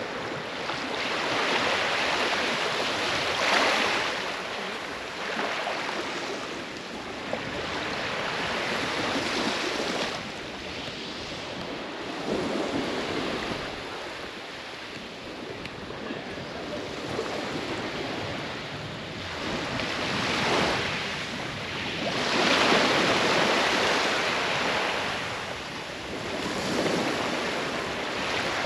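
Small waves washing up onto a sand beach, the surf swelling and fading every few seconds.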